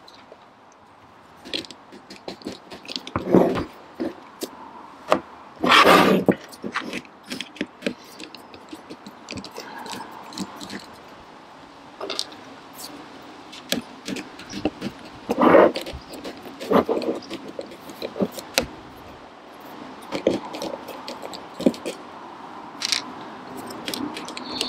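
A screwdriver with a T10 security Torx bit undoing the small screws on a car rear wiper motor's metal cover, making scattered small clicks, clinks and scrapes of metal on metal, with a few louder knocks.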